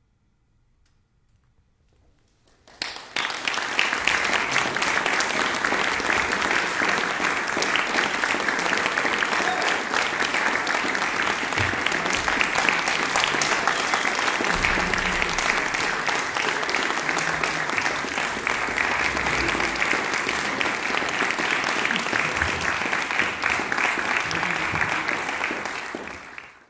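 Audience applause starting suddenly about two and a half seconds in after near silence, holding steady and dying away at the very end.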